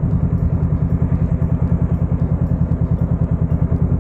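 Motorcycle engine idling, with a steady, even pulse of about ten beats a second.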